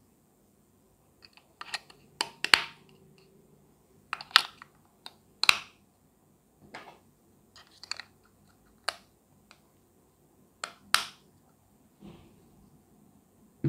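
AA batteries clicking and clacking as they are pressed into the plastic battery compartment of a Godox X1T-C flash trigger. About a dozen sharp, separate clicks with short gaps between them, as the batteries and the plastic body are handled.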